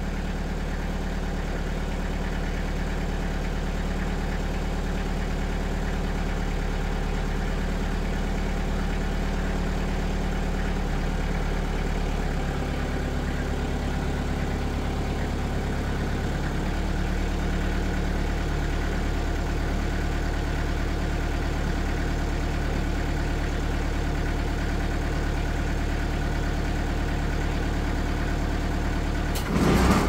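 TimberKing 2020 band sawmill's engine running steadily at idle, with no cutting, then revving up sharply just before the end.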